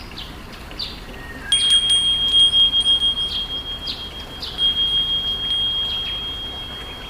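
Bright chime tones ringing, with a held high note from about a second and a half in, over short falling chirps repeated about twice a second; the sound cuts off abruptly.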